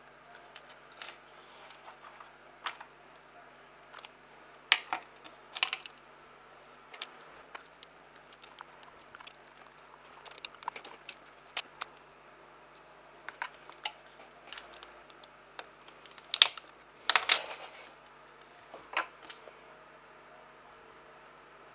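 Irregular small clicks and short scrapes of a utility knife blade working into a wooden chopstick, with a steel nail being handled and fitted against it. The sharpest, longest scraping comes as a cluster late on.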